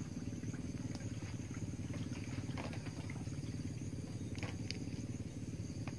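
A steady low, rough drone, with a few faint clicks over it.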